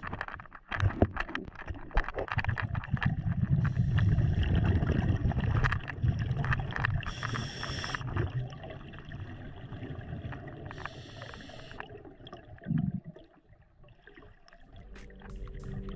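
Scuba diver breathing underwater through a regulator: a hiss on each inhale, recurring every three to four seconds, with the rumble and gurgle of exhaled bubbles between them.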